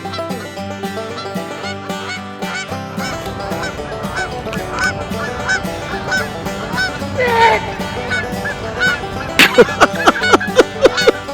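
Geese honking, a run of short repeated calls through the middle, over banjo music. The banjo turns to fast, sharp picking near the end.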